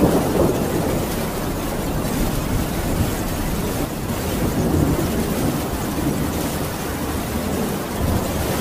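A thunderstorm: steady rain with low rolling thunder that swells at the start and again around five seconds in.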